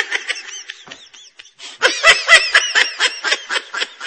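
Someone laughing in a run of short, quick bursts, about five a second. The laugh is faint at first and louder from about two seconds in.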